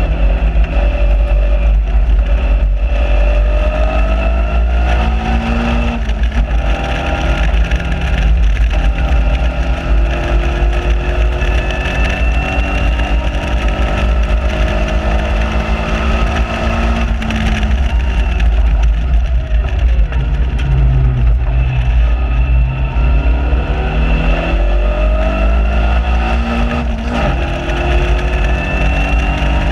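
Caterham Seven 1.6 Supersport's engine heard onboard under hard acceleration, revs climbing through the gears and dropping back at upshifts about six seconds in, near seventeen seconds and near the end. Heavy wind buffeting on the microphone in the open cockpit.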